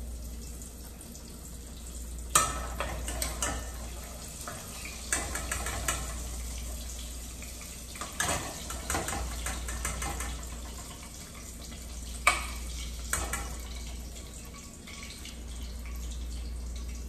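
Salmon bites frying in a small pot of hot avocado oil, the oil sizzling steadily. Metal tongs clink against the pot about six times as pieces are lifted out.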